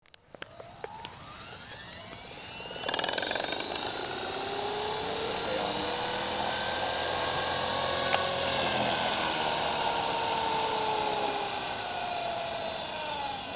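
Radio-controlled model helicopter spooling up on the ground: a high whine from its motor and spinning rotor that rises over the first three seconds, holds steady, then eases down near the end.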